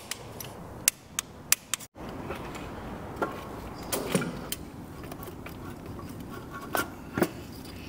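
Click-type torque wrench set to 12 Nm, clicking sharply several times in the first two seconds as it reaches torque on engine bolts. After that come scattered metallic clinks and knocks of parts and tools being handled on the engine.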